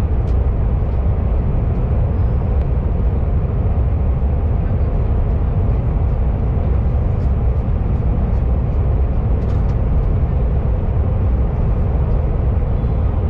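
Cabin noise of a KTX high-speed train in motion: a steady, loud low rumble with a faint hum and a few light ticks.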